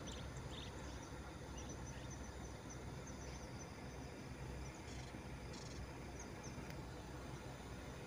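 Small birds chirping faintly: short high notes in loose runs, with a few lower chirps, over a steady low ambient rumble.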